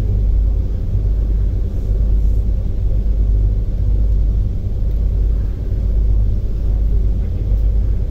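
Passenger ferry's diesel engine running steadily under way, a loud, low, unbroken rumble with a faint steady hum above it.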